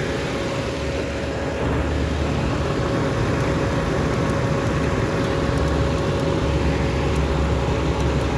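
A 2009 Ford Explorer's engine idling steadily with a thin steady whine; the low hum gets louder about one and a half seconds in and again near the end.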